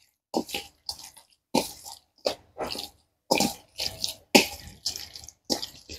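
Raw chicken pieces in a soy sauce marinade being mixed by hand in a stainless steel bowl: short wet squelches, roughly two a second.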